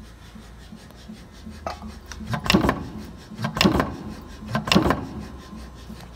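Strippit Super 30/30 hydraulic punch press cycling: three sharp punch strokes about a second apart, over the steady hum of the running machine.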